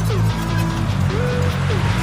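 Background music: a gliding melody line repeating about every second and a half over a steady bass.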